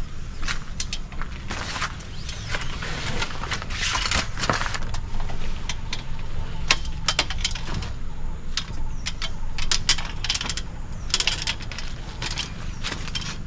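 Irregular clicks, knocks and rustling as someone climbs an aluminium ladder and handles a rooftop tent's fabric and folding base, over a steady low rumble.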